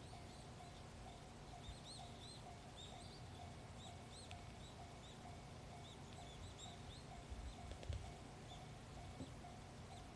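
Faint small birds chirping in short high calls over a quiet low background, with a faint regular ding about twice a second and a soft low bump near eight seconds.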